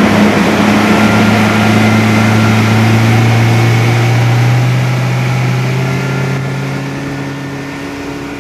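Boat's outboard motor running hard at full throttle, its note holding steady with a slight rise, over a rush of wind and water; it grows quieter over the last few seconds.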